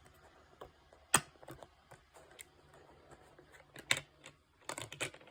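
Steelbook disc case being handled, giving sharp clicks and taps: a loud click about a second in, another near four seconds, and a quick run of clicks near the end.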